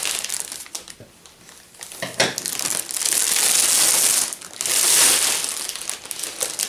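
Clear cellophane gift wrap crinkling and rustling as it is pulled open by hand, dying down briefly about a second in, then loud again in long bursts.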